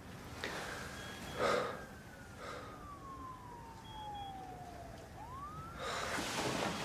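A man breathing heavily in his sleep, short gasping breaths about a second apart, during a nightmare. Under them a thin siren-like tone glides slowly down in pitch for several seconds, turns briefly upward, and a louder rush of noise follows near the end.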